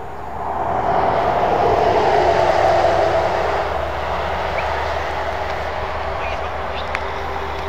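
A road vehicle passing on a nearby highway: a swell of tyre and engine noise that builds about half a second in and then slowly eases off to a steady hum.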